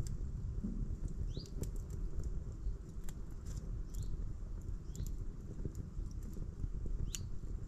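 Small campfire crackling steadily, with a few sharp pops. A bird gives a short rising call four times.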